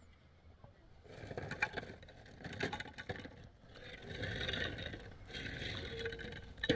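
Irregular scraping with scattered knocks and clicks, starting about a second in, with one sharp knock near the end.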